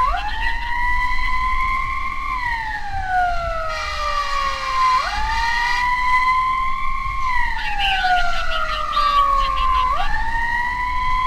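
Emergency vehicle siren on a slow wail: about every five seconds it jumps quickly up in pitch, holds for a couple of seconds, then slides slowly back down. A brief hiss comes in about four seconds in.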